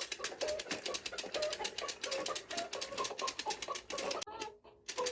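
Kokomam electronic baby toy making rapid mechanical clicking, about ten clicks a second, with short choppy tones mixed in. The clicking breaks off briefly near the end. This is the strange noise the toy has started making.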